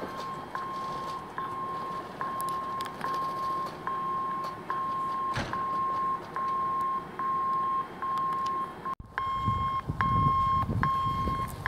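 Electronic railway warning beeper giving a steady, even series of single-pitch beeps, about two a second. About three quarters of the way through it sounds harsher, with more overtones.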